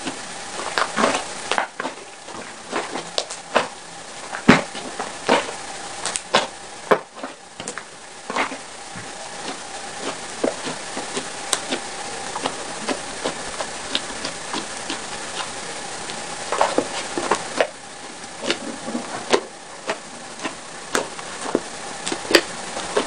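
Purple glitter glue slime being squeezed and poked by hand, giving irregular wet clicks and pops.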